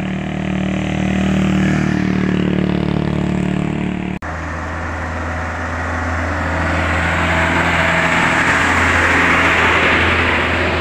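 A motor vehicle's engine running steadily. There is a brief dropout about four seconds in, and then a truck passes close by, its engine and tyre noise swelling to the loudest point near the end and easing off.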